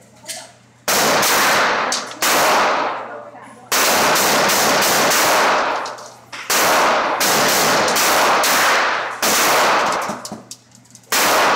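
A .22 LR pistol fired about eight single shots in an indoor shooting range, spaced irregularly a second or so apart, each shot ringing off the range walls for most of a second.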